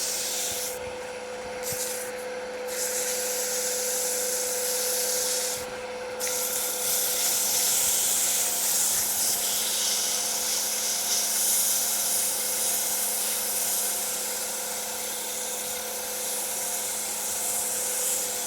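220-grit sandpaper hissing against a cherry blank spinning on a wood lathe at low speed, with dust coming off freely: the paper is still cutting. The hiss stops briefly three times in the first six seconds as the paper comes off the wood, over a steady motor hum.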